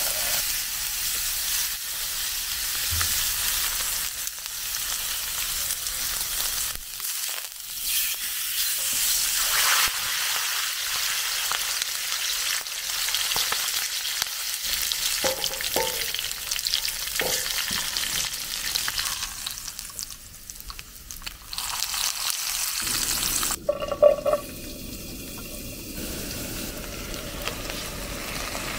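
Pork belly and chopped vegetables sizzling as they fry in hot oil, with tongs stirring in the pot. The sizzle falls away near the end, where one sharp knock sounds.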